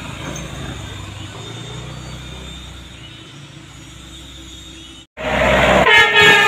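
Engines of a loaded dump truck and a car labouring up a steep hill, a steady low drone. After an abrupt cut about five seconds in, a minibus passes loudly close by, with a blaring horn tone near the end.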